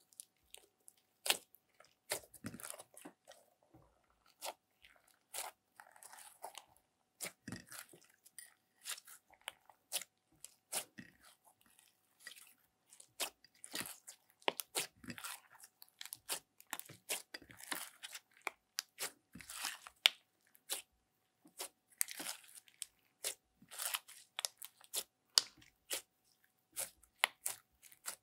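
Slime mixed with soft clay being squeezed and kneaded by hand in a glass dish: many irregular sticky clicks, pops and squelches.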